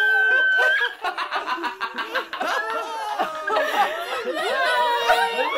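Several people laughing at once in overlapping peals, collaged into a laugh track. A high, held shriek of laughter opens it, rapid cackling follows about a second in, and another long held laugh comes near the end.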